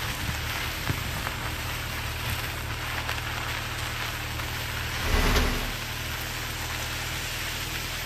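Car tyres rolling over a gravel and dirt road: a steady crackling crunch of small stones with scattered ticks over a low rumble. A brief louder rush comes about five seconds in.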